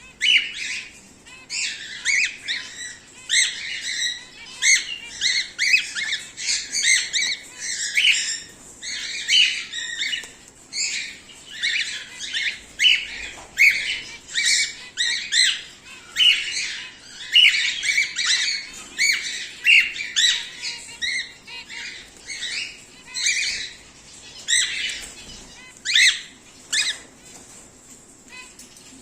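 Cockatiels calling: a dense run of short, high chirps and squawks, several a second.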